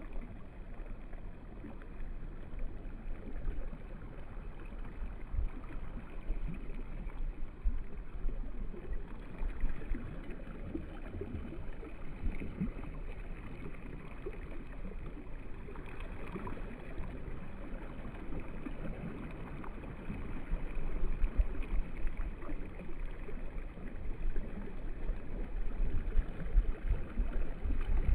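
Shoreline ambience: a low, uneven rumble of wind and gently lapping shallow water, growing a little louder in the last third. No bird calls stand out.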